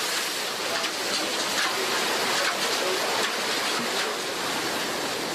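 Water pouring and splashing steadily as mud and stones are washed down by hand.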